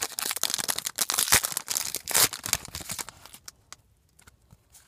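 Foil trading card pack wrapper crinkling and tearing open, a dense crackling for about three seconds, then a few light ticks as the cards are handled.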